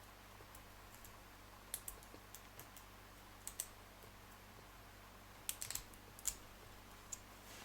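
Faint, sharp metallic clicks of a lock pick and tension tool working the pins inside a four-pin Abus 713/40 padlock, coming in small clusters every second or two.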